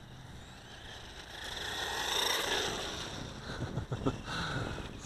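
Small electric RC tractor (WLtoys P949) driving fast across asphalt, its motor and gears whining with tyre noise, swelling to a peak about two seconds in and then fading.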